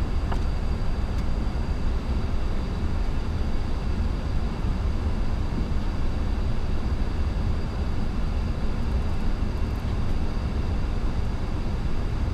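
Steady flight-deck noise of an Airbus A340-300 in flight on approach: an even rush of air and machinery over a deep rumble, with a faint steady high tone.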